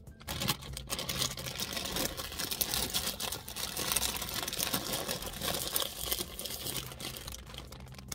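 Snack bag crinkling and crackling continuously as it is rolled up shut by hand.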